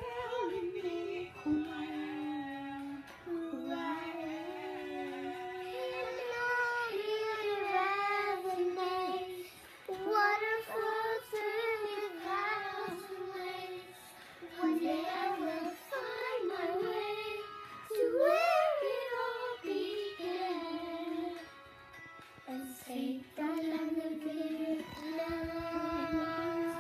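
A child's voice singing a melodic song with music, phrases held and bending in pitch with short breaks between them.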